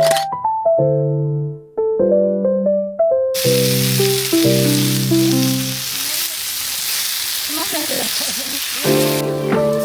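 A steady sizzling hiss starts about three seconds in and stops shortly before the end, over background piano music.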